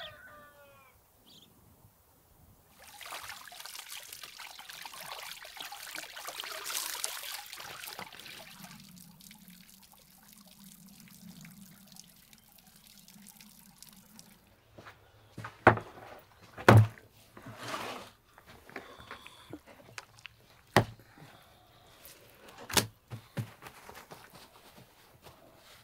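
Water running from a garden hose over pieces of fish for about five seconds, followed by a low steady hum. Then a run of loud, sharp knocks on a wooden table as the whole sturgeon is worked by hand.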